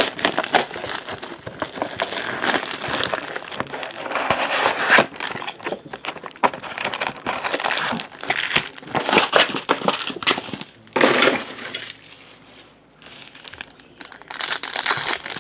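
Trading-card pack wrappers crinkling and being torn open, with cards handled. The crackle eases off for a few seconds about two-thirds through, then picks up again near the end.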